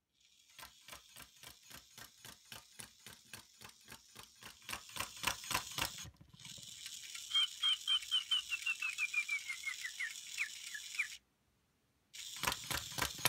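Little Live Pets Surprise Chick toy walking, its motor-driven feet ticking at about five steps a second, with a run of short electronic cheeps falling in pitch in the second half. The ticking stops for about a second near the end, then starts again.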